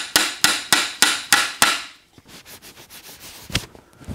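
Steady metal tapping, about three sharp taps a second, as the countershaft is driven into the Ford Toploader 4-speed case; the taps stop after about a second and a half. A shop rag then rubs over the case, and there are two knocks near the end.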